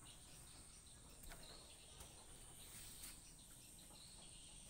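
Near silence: faint outdoor background with a steady high-pitched insect drone and a few faint chirps.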